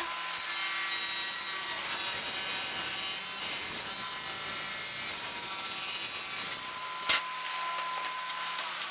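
Table saw running with a steady high whine as it rips a bevel along a wooden moulding blank for the final cut, with a single knock about seven seconds in. Near the end the saw is switched off and the blade's whine falls in pitch as it winds down.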